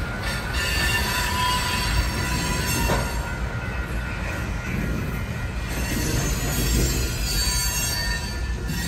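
Freight train of covered hopper cars rolling slowly over a grade crossing: a steady low rumble under several thin, sustained high squealing tones from the wheels on the rails, heard from inside a car.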